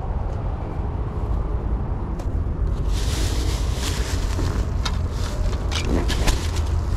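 A steady low rumble runs throughout. From about three seconds in come busy rustling and brushing sounds with small crackles: footsteps through long grass and weeds.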